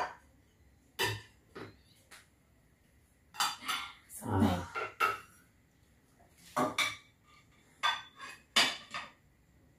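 Plates and a frying pan clinking and clattering as they are handled and set down. There are single knocks about one, one and a half and two seconds in, a busier run of clatter from about three and a half to five seconds, and a few more near the end.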